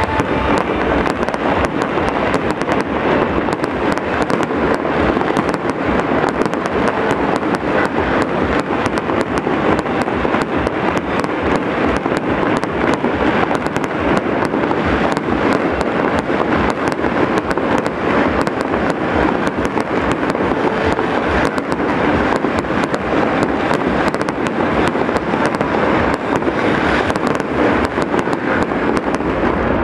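Fireworks display in a dense, unbroken barrage: aerial shells bursting in quick succession, many rapid bangs and pops overlapping at a steady high level.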